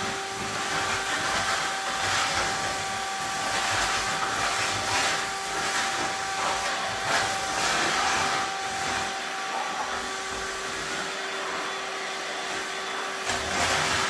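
Canister vacuum cleaner running, a steady whine over rushing suction as its floor head is pushed across a tile floor. The rush swells briefly several times as the nozzle moves.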